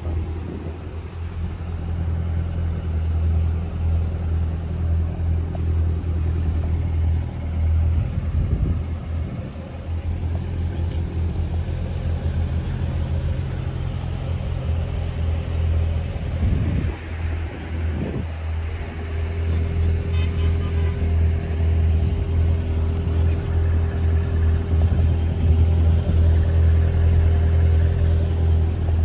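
A car engine idling with a steady low rumble that pulses unevenly. Its pitch dips and swells briefly a little past halfway, and after that a steady higher hum joins it.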